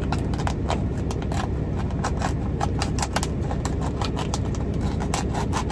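Thin clear plastic cup crinkling and crackling in the hands as it is squeezed and worked, a quick irregular run of small clicks, over a steady low rumble.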